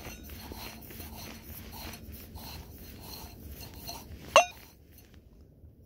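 Footsteps crunching through snow at a walking pace, about two to three steps a second, then one short, sharp, loud sound with a quickly rising pitch about four seconds in, after which the steps stop.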